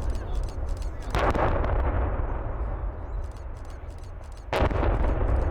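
Explosive demolition of cooling towers: two sharp blasts from the charges, about a second in and again near the end, over a continuous low rumble of the collapsing concrete.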